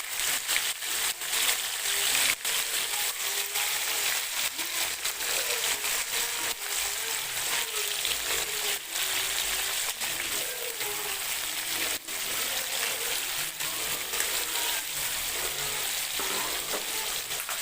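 Paneer frying in hot mustard oil in a kadai: a steady sizzle with frequent small crackles and pops.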